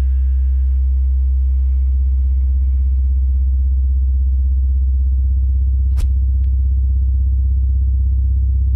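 Deep, steady electronic drone of the soundtrack, a loud low hum with a few overtones above it that swells slightly about five seconds in, with a single sharp click about six seconds in.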